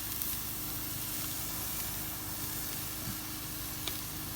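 Pork chop sizzling over a campfire: a steady frying hiss, with a couple of small pops near the end.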